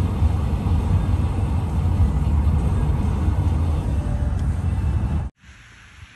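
Steady low road rumble and hiss of a car driving, heard from inside. It cuts off suddenly about five seconds in, leaving a faint hiss.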